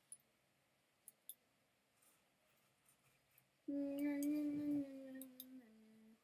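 A person humming a held note for about two seconds, sliding slightly down and then stepping to a lower note near the end. Before it, only a few faint clicks.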